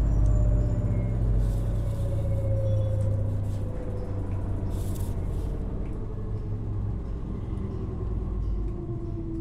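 LG FHT1208SWL front-load washing machine slowing down at the end of its spin cycle. The drum's rumble and the direct-drive motor's whine fall slowly in pitch as the sound gets quieter.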